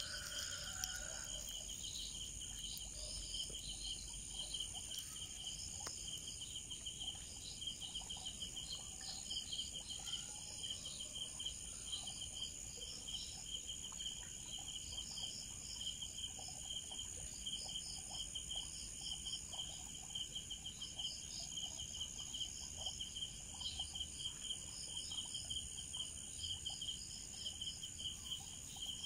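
Night chorus of crickets and other insects: a fast, evenly pulsed trill with steady high buzzing and scattered chirps over it.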